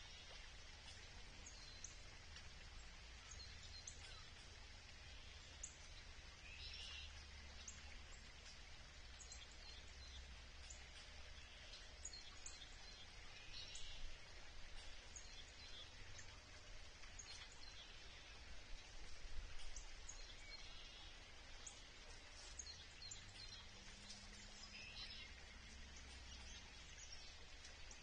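Faint outdoor ambience: scattered short, high bird chirps over a steady hush of creek water.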